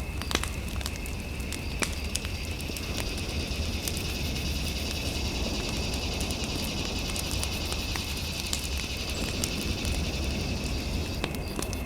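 Fireplace fire crackling, with irregular sharp pops over a steady low rumble. A steady high electronic tone runs alongside it.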